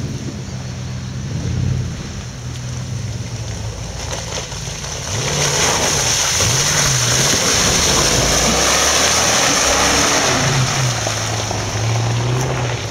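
Off-road 4x4's engine revving up and down under load. From about five seconds in, a loud rushing noise joins it and runs until near the end.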